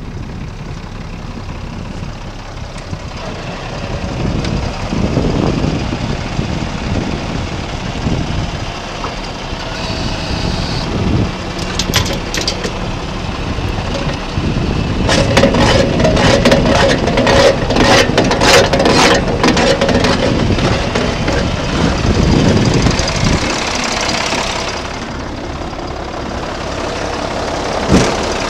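Ford L8000 truck's six-cylinder diesel engine idling steadily, with gusty noise on the microphone and a run of sharp clicks about halfway through.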